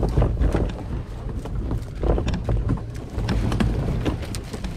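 A plastic sit-on-top kayak hull being dragged over dirt, grass and brush: a low scraping rumble with irregular knocks and crackles throughout.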